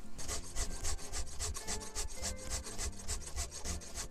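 Round chainsaw file rasping across the cutter teeth of a Stihl .325 Oilomatic chain on a Stihl MS 261 C, in a rapid, even run of short strokes.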